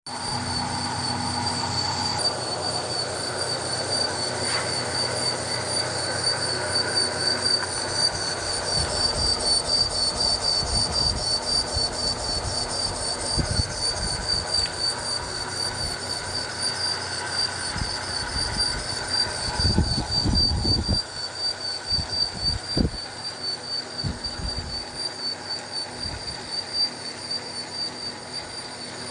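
Metal-turning lathe cutting, with a steady high-pitched squeal over the machine's running noise. A few low knocks come about two-thirds of the way through.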